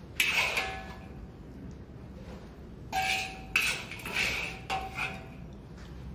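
Metal ladle knocking and scraping against a wok while food is scooped out, each knock with a short metallic ring. There is one sharp clang about a quarter second in, then a run of four or five more from about three to five seconds in.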